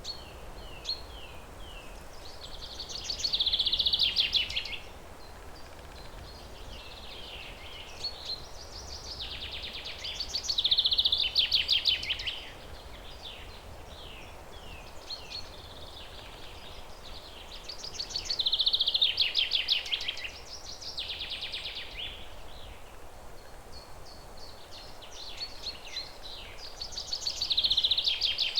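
A songbird singing: a phrase of a few quick notes running into a fast trill, about two seconds long, repeated four times roughly eight seconds apart. Short chirps fall between the phrases, over a faint steady outdoor hiss.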